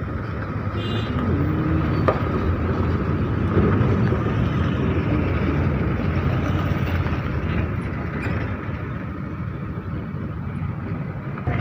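Steady engine and road noise of heavy trucks and other vehicles on a rough dirt road, with one short knock about two seconds in.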